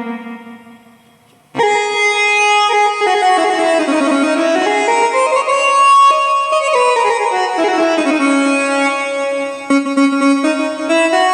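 Roland XPS-30 keyboard playing a built-in preset: a held note fades out over the first second and a half, then a sustained lead voice plays a melody that slides smoothly down and up in pitch between notes.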